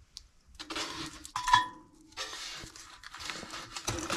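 Split firewood logs being loaded into a small steel wood stove's firebox, knocking and scraping against the metal, with a short metallic ring about a second and a half in. The stove is being restocked onto its last embers.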